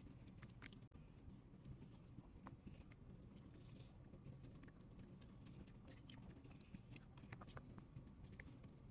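Faint, irregular little clicks and smacks of a chihuahua chewing and tearing grilled chicken breast off a skewer, over near silence.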